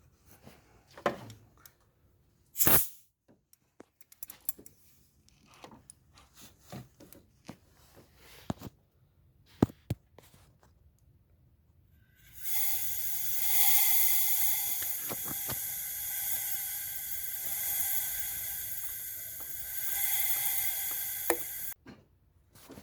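Light scattered clicks and taps, then compressed air hissing steadily for about nine seconds before cutting off suddenly: air fed into an engine cylinder to test the hydraulic valve lifters.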